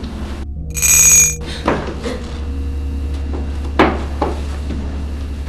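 A bell rings briefly and loudly about a second in, followed by a few scattered knocks over a steady low hum.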